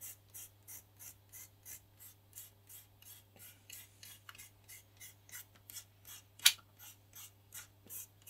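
Fingertips rubbing back and forth over plastic film laid on an epoxy-wet glass-cloth patch on a model glider wing, in even strokes about three a second, as the edge of the layer is massaged in. A single sharp click about six and a half seconds in is the loudest sound.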